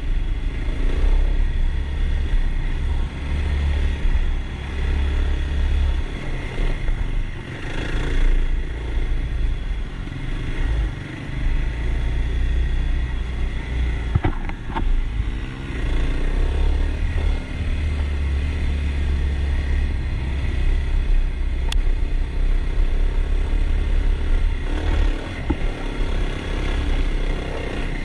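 Kawasaki KLX dirt bike's single-cylinder four-stroke engine running under way on a dirt trail, its level rising and easing with the throttle, over a heavy low rumble. A couple of sharp knocks come about halfway through.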